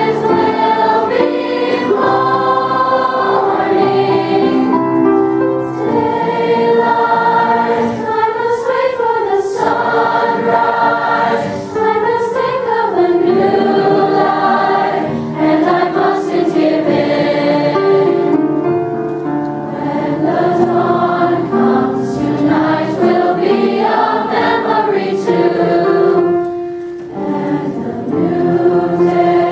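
Large youth choir of mixed boys' and girls' voices singing a slow ballad, holding long notes.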